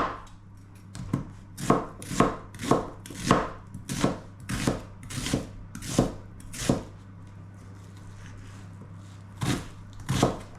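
Kitchen knife cutting an onion: a series of sharp chopping knocks, about one and a half a second, then a pause of a couple of seconds before two more cuts near the end.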